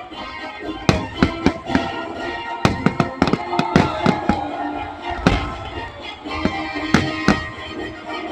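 Fireworks display: a rapid, irregular series of sharp bangs from bursting shells, with music playing underneath.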